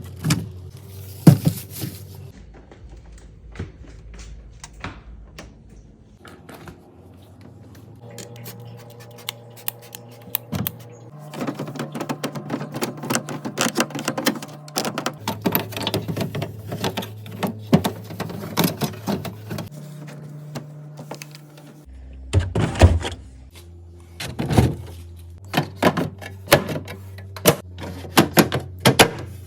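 Irregular clicks, taps and knocks of containers and food items being handled and set down while a refrigerator is cleaned and restocked, busiest in the middle and again near the end.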